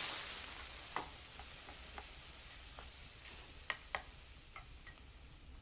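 Food sizzling in a stainless steel frying pan while a spatula turns it, the hiss strongest at first and fading. Light clinks and taps of kitchen utensils come every second or so, with two sharper clinks close together near four seconds in.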